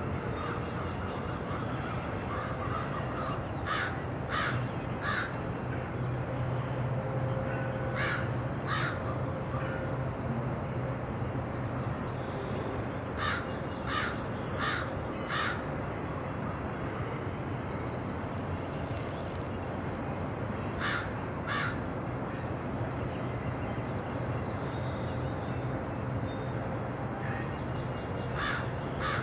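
Crows cawing in short series of two to four calls, repeated several times, over the steady low rumble of a CN double-stack container freight train rolling past.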